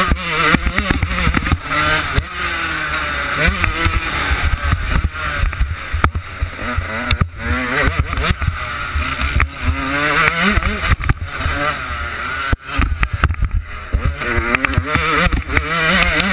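Yamaha YZ125 two-stroke single-cylinder engine being ridden hard, its revs climbing and dropping back again and again. Heavy wind buffeting on the camera microphone underneath.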